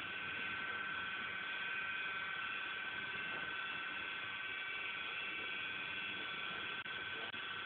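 Cement mixer running steadily: a continuous mechanical drone with a few steady high tones over it.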